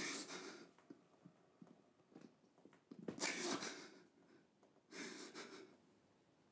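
A man breathing heavily: three long, noisy breaths, one at the start, one about three seconds in and one about five seconds in.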